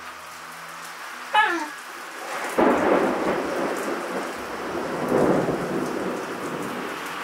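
Heavy rain pouring steadily, with a thunder rumble that breaks in about two and a half seconds in and rolls on for several seconds, swelling again about halfway through. Just before the thunder, a dog gives a brief whine that slides down in pitch.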